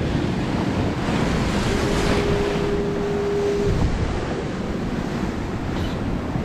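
Rough surf breaking and foaming around a jet ski, with wind buffeting the microphone. A single steady tone sounds for about two seconds in the middle.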